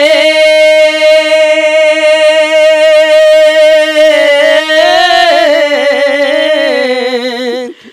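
A man singing a Punjabi Sufi kalam unaccompanied. He holds one long, steady note for about four seconds, then wavers through an ornamented run and breaks off just before the end.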